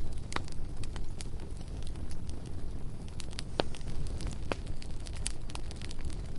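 Bonfire crackling: wood popping and snapping at irregular intervals, with one sharper snap a little past halfway, over a steady low rumble.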